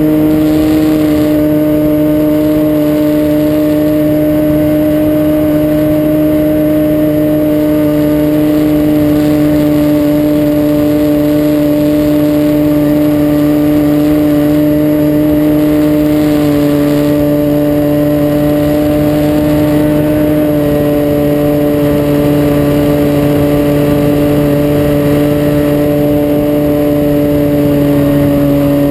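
Glow engine of an Avistar .40 RC model airplane running hard at a steady pitch, heard close up from just behind the engine during takeoff and climb-out. Its pitch dips slightly near the end.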